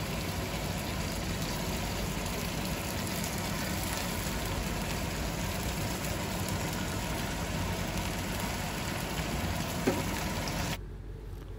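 Marinated pork rib pieces sizzling in hot oil in a frying pan as they are laid in with tongs, a steady hiss with a single short tap about ten seconds in. The hiss drops away abruptly near the end.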